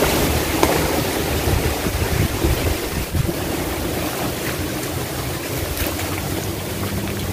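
Wind buffeting the microphone with a steady rumble and rush, along with faint rustling of grass and leaves from footsteps.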